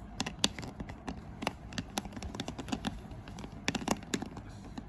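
Irregular light clicks and taps of a plastic MAM baby bottle being handled and turned in the hand.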